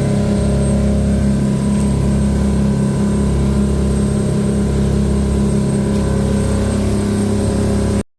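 Boat engine running steadily at a constant speed, cutting off suddenly near the end.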